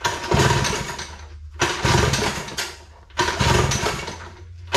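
Vintage Mercury two-stroke outboard racing motor being pull-started: three hard yanks on the recoil starter cord about a second and a half apart, with a fourth starting near the end. Each pull is a burst of fast cranking rattle that fades away, and the engine turns over without catching.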